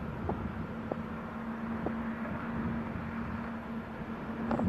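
Distant ALCo WDM-3A diesel locomotive running, a steady low engine hum and rumble, with a few faint ticks over it.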